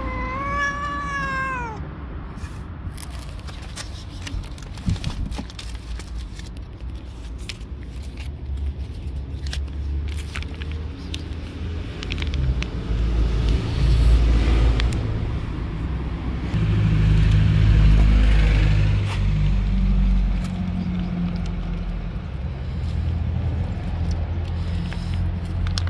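A tabby cat meows, the call falling in pitch as it ends about two seconds in. Then a plastic wet-food pouch is handled and torn open, with crinkling and clicks over a low rumble that swells twice.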